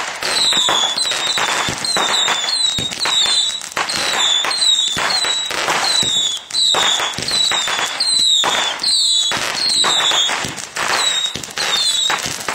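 Fireworks going off: a dense, continuous run of pops, bangs and crackles, with short falling whistles repeating over and over.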